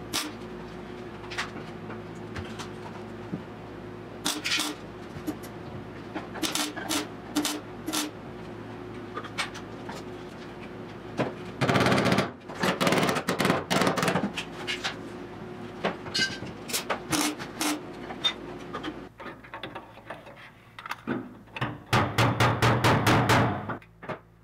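Wire-feed (MIG) welder tack-welding sheet-steel floor panels: the arc sputters in short bursts, scattered singly at first, then in two denser runs of about two seconds each, one near the middle and one near the end.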